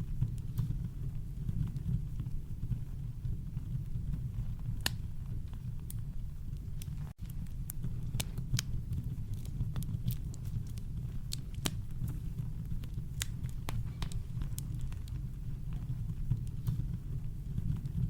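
Campfire crackling: sparse, irregular sharp pops and snaps from burning wood over a steady deep brown-noise rumble. The sound cuts out for an instant about seven seconds in.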